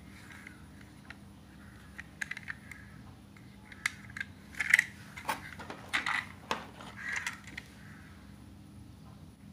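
Plastic toy passenger coach handled and turned over in the hands: a run of small clicks and rattles from its plastic body and wheels, loudest about halfway through.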